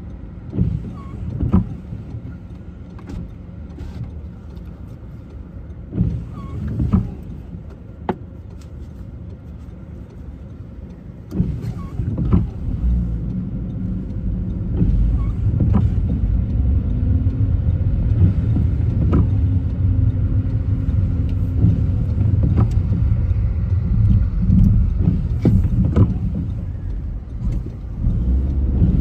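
Car driving on city streets: steady engine and tyre rumble with scattered short knocks and clicks, getting louder about a third of the way in as the car picks up speed.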